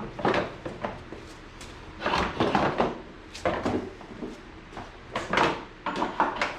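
Plastic ride-on toy body being worked down onto its frame: hollow plastic knocks, rattles and scrapes in several irregular bursts.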